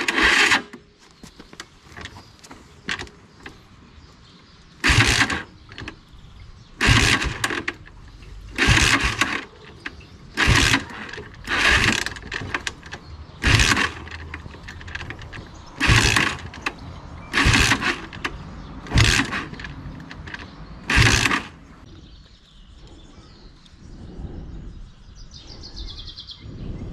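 Motorcycle engine being cranked in about ten short bursts a second or two apart, without catching. The spark is good; the fault lies in the fuel supply, clogged carburettor jets.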